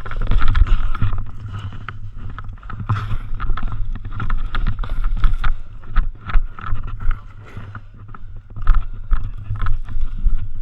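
Rumbling handling and movement noise on a body-worn action camera, with irregular knocks and rustles from footsteps and gear, and a little wind on the microphone.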